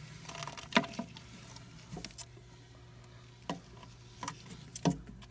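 Handling noises: a few sharp clicks and taps, the loudest about a second in, with light rustling, over a steady low hum.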